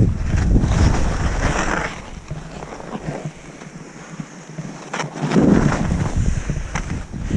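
Wind buffeting an action camera's microphone during a ski descent, mixed with skis running over the snow. The rumble eases off about two seconds in, then builds up again after about five seconds, with a couple of sharp clicks.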